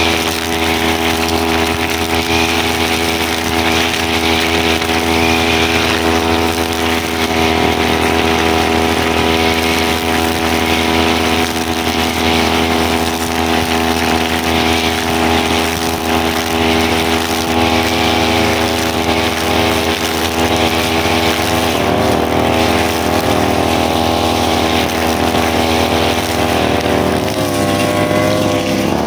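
Brushcutter engine running steadily while sweeping dry leaves off a road. Its pitch shifts a little a few times, with a brief dip and recovery near the end.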